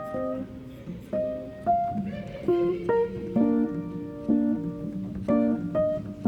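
Background music: plucked guitar-like notes with some keyboard, picking out a melody at an even pace.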